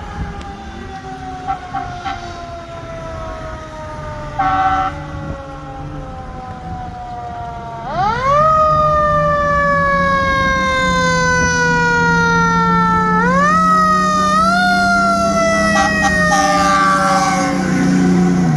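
Fire engine siren sliding slowly down in pitch, with a short air-horn blast about four seconds in. The siren is wound up sharply and much louder about halfway, then twice more, each time gliding back down. Toward the end the truck's Detroit diesel engine drones as it passes close.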